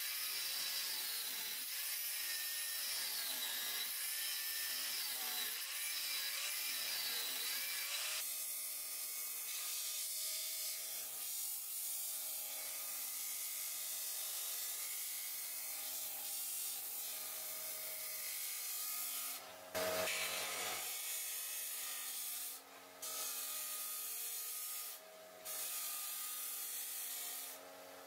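Angle grinder with a thin cut-off disc cutting slots into leaf-spring steel, its whine wavering under load. About eight seconds in it gives way to a Scheppach disc sander running steadily as the steel blade blank is ground flat against its sanding disc, the sound dipping briefly a few times near the end.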